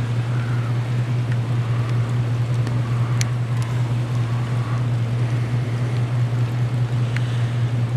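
A steady low hum over a light hiss of falling freezing rain, with a few faint ticks.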